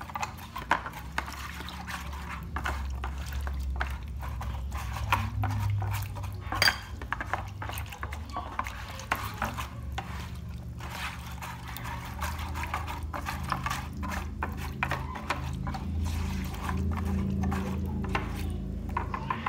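Spoon stirring a garlic marinade in a shallow tray: liquid sloshing, with frequent small clicks and scrapes of the spoon against the tray.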